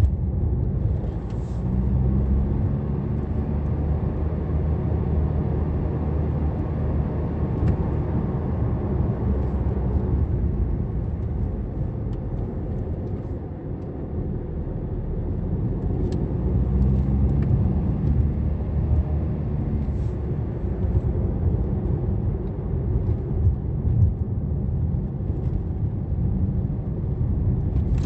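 Car interior noise while driving: engine running with steady tyre and road rumble heard from inside the cabin. The engine note comes through more strongly twice, about two seconds in and again around sixteen seconds in.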